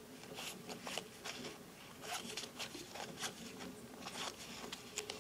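Playing cards being thumbed through one at a time in the hands, a quiet, irregular run of soft flicks and rustles as each card slides past the next.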